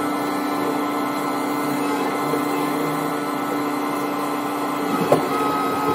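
Heavy machinery running with a steady, droning hum, with a single knock about five seconds in.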